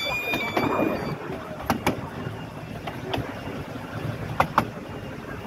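Miniature railway passenger car rolling along the track: a steady rumble of wheels on rail with sharp clicks every second or so from the rail joints. A high ringing tone carries over from before and fades out about a second in.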